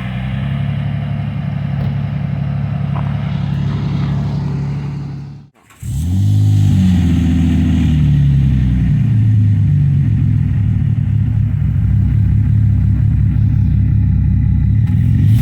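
Dodge Magnum SXT's V6 engine running at a steady speed, then, after a sudden brief cut about five and a half seconds in, revving up and down again and again as the car is driven to pull it out of the snow.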